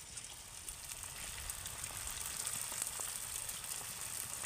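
A stuffed dough pitha deep-frying in hot oil in a wok: a steady sizzle with many small crackles, growing louder as the oil bubbles up around it.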